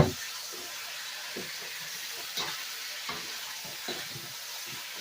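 Food sizzling steadily in a hot pan as it is stir-fried, with a spatula knocking and scraping against the pan every half second to a second; the sharpest knock comes right at the start.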